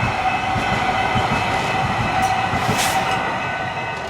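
Metro K Line light rail train running past on its rails: a steady high whine over a run of low, evenly spaced wheel knocks, with a brief hiss near the end.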